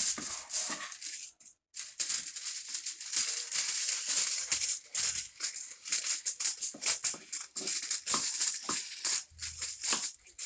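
Aluminium foil crinkling and rustling as a sheet is pulled off the roll and spread flat by hand: a rapid, uneven run of crackles with a short lull about a second and a half in.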